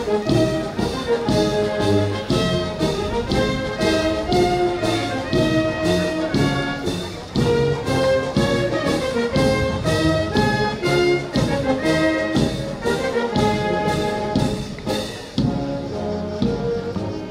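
Brass band playing a march, with a steady beat about twice a second under the brass.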